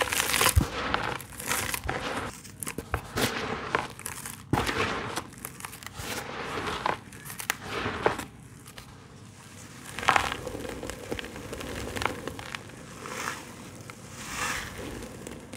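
Dry sand-cement clumps crushed by hand over a plastic sieve: gritty crunching and crackling in irregular bursts, with the hiss of powder sifting through the mesh. The crunching is densest over the first few seconds, giving way to separate rustling sweeps later.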